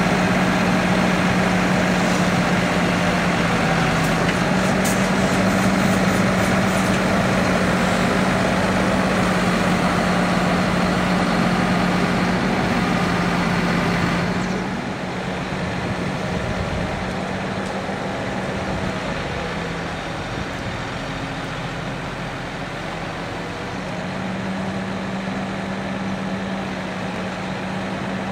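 Articulated lorry's diesel engine running to drive its Palfinger loader crane's hydraulics during a lift, a steady hum whose pitch steps up and down a little. About halfway through the sound changes abruptly and runs on a few decibels quieter.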